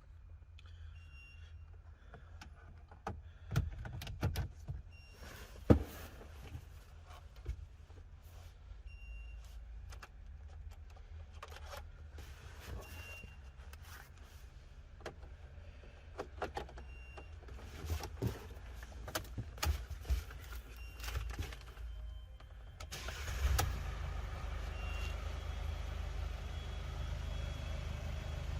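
Scattered clicks and knocks of installation work on a Mercedes Vito van over a low hum. About three-quarters of the way through, a louder, steady running noise starts and carries on.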